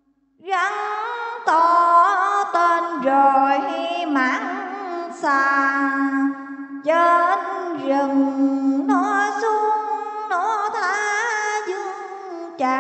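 Slow melodic music: a single melody line with wide vibrato and sliding notes over a steady low drone, starting about half a second in after a brief silence.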